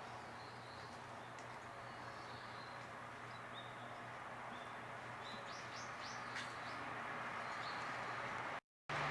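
Small garden birds chirping in short, high calls, with a quick run of four rising chirps about halfway through, over a steady background hiss that slowly grows louder. The sound cuts out completely for a moment near the end.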